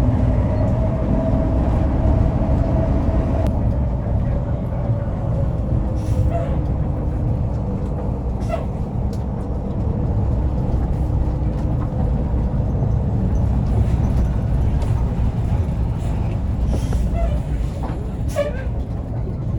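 Hino RK8 tour bus on the move: a steady low rumble of engine and road noise with a faint steady whine over it.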